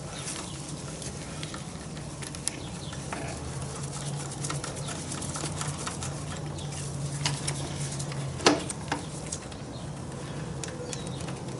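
Scattered light clicks and taps of a hand tool working the bolt of a motorcycle's negative battery terminal, with one sharper click about eight and a half seconds in, over a faint low hum.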